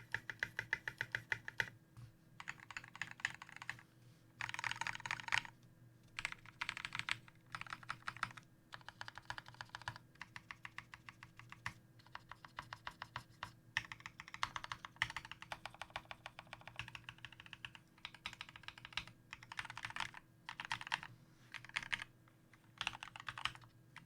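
Fast typing on a GMMK TKL mechanical keyboard with lubed Kailh Speed Silver linear switches and PBT doubleshot keycaps: quick runs of keystrokes broken by short pauses every second or two, over a faint steady hum.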